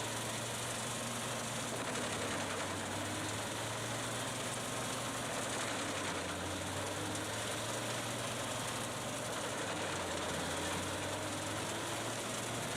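A heavy machine's engine running steadily under a constant low hum, with no change in pace or load.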